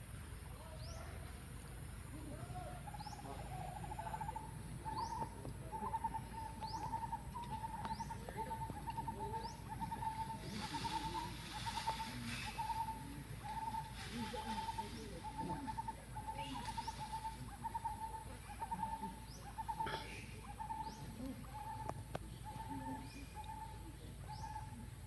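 A bird calling one short note over and over, about twice a second, with faint high rising chirps from another animal behind it.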